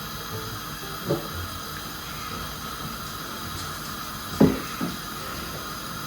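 Milk heating in a saucepan on the stove, giving a steady hiss, with two short clinks about a second in and at about four and a half seconds. The milk is getting hot enough that the heat needs turning down so it doesn't burn.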